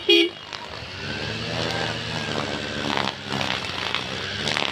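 A vehicle horn toots briefly at the start, then small two-wheeler engines (a motorcycle and a motor scooter) run steadily at idle close by.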